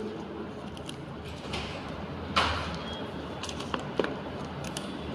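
Packaging being handled during an iPhone 12 unboxing: scattered light clicks and taps, with one louder sliding scrape about two and a half seconds in.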